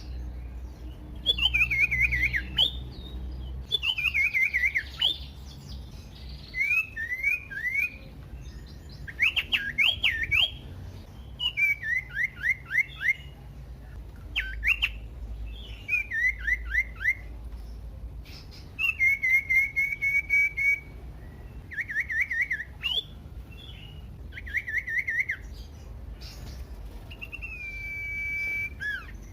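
Common iora singing a varied song: a string of clear whistled phrases, mostly runs of repeated downward-sweeping notes and quick warbles, one after another with short pauses between.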